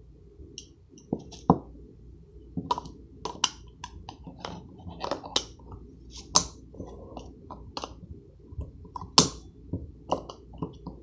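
Handheld manual can opener's metal jaws clicking and knocking against the rim of a tuna can as it is worked on, in irregular sharp clicks, the loudest about a second and a half in and near nine seconds. The opener is hard to get latched onto the rim.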